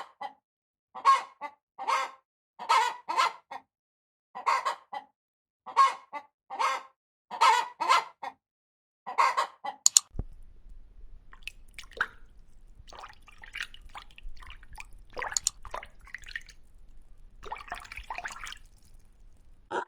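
Domestic fowl calling: short, loud calls repeated one or two a second for about ten seconds. The calls then stop abruptly, giving way to a faint low hum with scattered small sounds.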